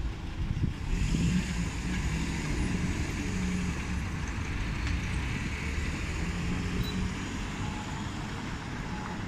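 City road traffic: car engines and tyres passing close by, a steady low rumble with a hiss that swells about a second in.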